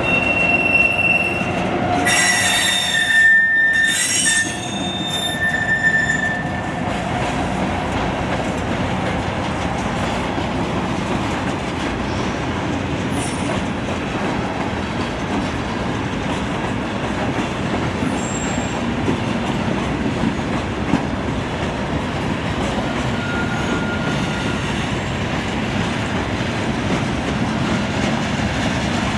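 Norfolk Southern coal train of aluminum hopper cars rolling past, its wheels squealing in several high tones during the first six seconds, then a steady rolling rumble of wheels on rail.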